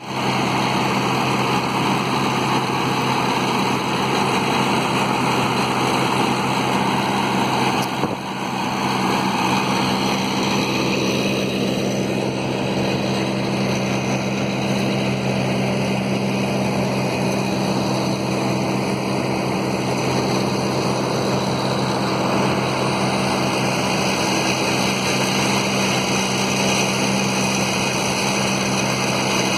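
An engine running steadily at a constant speed, with a single short knock about eight seconds in.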